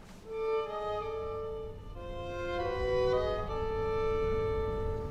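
Background music of bowed strings playing slow, held notes that step between pitches. A low sustained layer joins about a second in.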